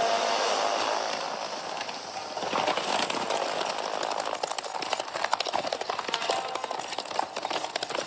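Horses galloping, with hooves striking in a quick, uneven clatter that starts about two and a half seconds in and carries on. Before that comes a steady rushing noise.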